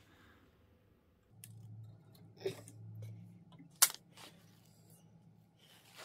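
Faint clicks and taps of small parts being handled as a cable end cap is fitted onto the end of a bicycle's disc-brake cable, with one sharp click about four seconds in. A low hum sits under it between about one and a half and three and a half seconds.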